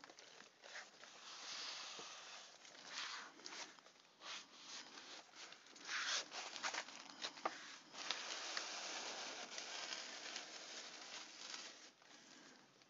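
Rustling, crinkling and scraping of sealed trading-card boxes and their wrapping being handled and slid about, with light taps and clicks throughout.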